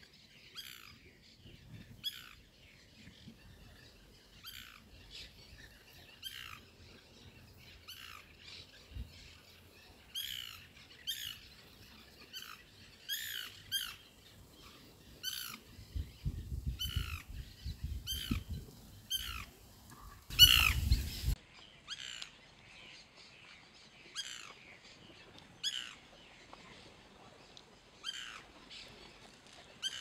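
White woodpecker (Melanerpes candidus) calling: a long series of short notes, each falling in pitch, repeated about once or twice a second. A brief low rumble comes about two-thirds of the way through.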